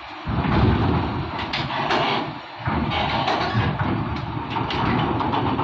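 Low-bed trailer truck hauling an excavator slowly up a ferry's steel loading ramp: the diesel engine running under load with rattling and sharp metallic clanks. The noise drops away briefly about two and a half seconds in, then picks up again.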